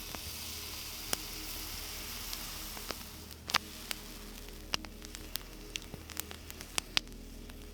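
Food sizzling in a frying pan over a camp stove. The sizzle is strongest for the first few seconds and then eases, with scattered sharp pops and crackles.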